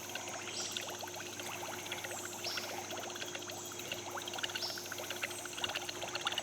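Water trickling and splashing lightly, with a faint steady hum and a short high chirp repeating about every two seconds.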